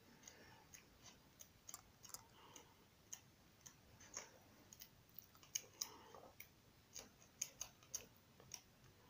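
Very faint paper handling: irregular soft clicks and light rustles as the pages of a paperback colouring book are turned by hand.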